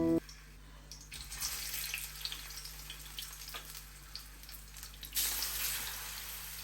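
Food sizzling in a frying pan, a steady hiss with scattered small crackles that gets louder about a second in and again near five seconds in.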